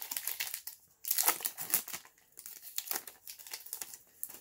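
Baseball cards being handled and flicked through by hand: papery rustling in several short bouts.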